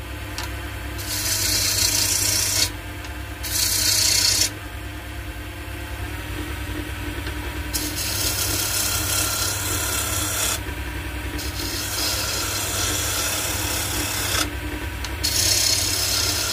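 Draper wood lathe humming steadily while a freshly sharpened woodturning gouge cuts a spinning wooden spindle, the cut heard as a hissing shave in five passes of one to three seconds with short pauses between.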